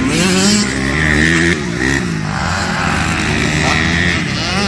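Motocross bikes racing on a dirt circuit, their engines revving up and falling back in pitch over and over.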